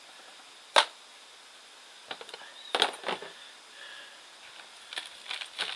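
A single sharp knock a little under a second in, then a few lighter clicks and scrapes of hand tools being handled on a plastic potting tray, as a small metal root rake is picked up.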